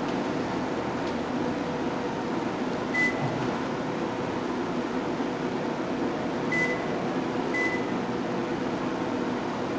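Three short high electronic beeps, one about three seconds in and two a second apart later on, from a recorder being switched on. A steady hiss and hum runs underneath.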